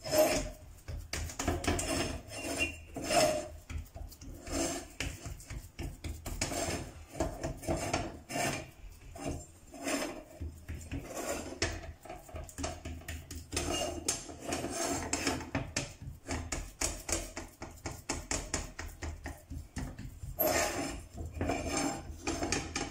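Repeated soft pats and rubs of hands pressing thalipeeth dough flat on an iron tava, mixed with the tava scraping and rattling on the gas-stove grate as it is turned round.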